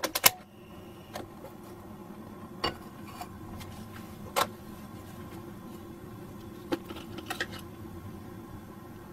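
Gas stove burner lit with a couple of sharp clicks, then a steady low hiss of the flame under scattered light clicks and knocks of a pan and glass jar being handled.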